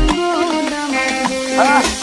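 Background music: an instrumental passage of a song, with a pitched melody, a few sliding notes and beat hits, and no singing.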